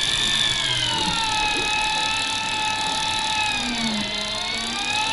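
Electric deep-drop fishing reel winding in line under the weight of a hooked fish: a steady motor whine whose pitch sags as the load comes on, dipping lowest about four seconds in before rising back.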